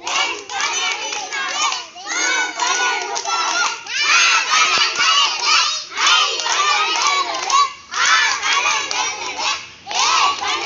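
A group of young children chanting loudly in unison, reciting the twelve times table in Tamil in shouted phrases about every two seconds.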